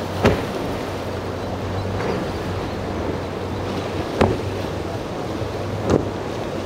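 Twin Mercury Racing 400 outboards on a powerboat running at speed through choppy water, a steady low drone under wind and surf noise, with three sharp slaps spaced a couple of seconds apart as the hull hits the chop, the first the loudest.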